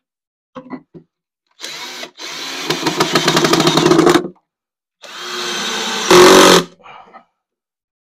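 Power drill boring pocket holes into the wood of the counter top, running in two bursts: the first about two and a half seconds long and growing louder as the bit cuts in, the second shorter and ending in a brief, louder burst.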